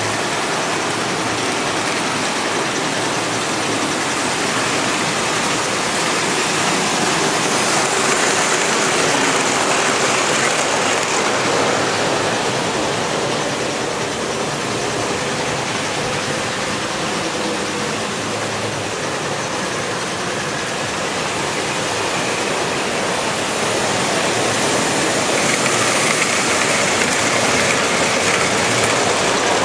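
S-gauge model trains running on the layout's track, a steady rumble of wheels on rail with motor hum. It swells louder twice as the trains pass close by.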